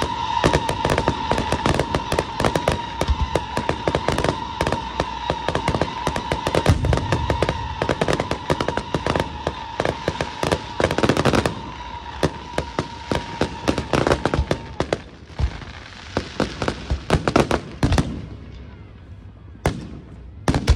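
Aerial fireworks display: a fast, dense crackle of small shells and stars bursting, with a steady high tone running underneath. The tone stops about three-quarters of the way through. After that the crackling thins out to a few separate, louder bangs near the end.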